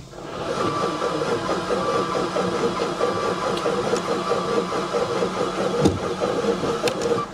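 Twin-turbo Maserati engine being cranked over by its starter on a jump pack for about seven seconds without firing, a steady rhythmic churn that cuts off suddenly near the end. It does not catch because its fuel rail is disconnected.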